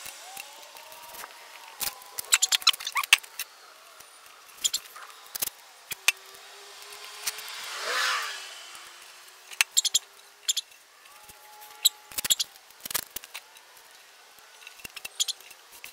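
Masking tape being pulled, pressed down and trimmed on a plastic go-kart body panel, a string of sharp crackles and clicks. A vehicle passes about halfway through, swelling and then fading.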